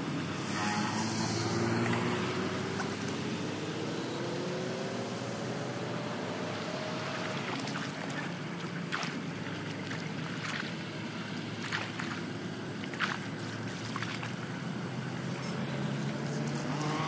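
Steady rush of floodwater running along a street gutter, with a distant engine rising slowly in pitch over the first several seconds. Around the middle come a few sharp splashes of feet stamping through shallow water.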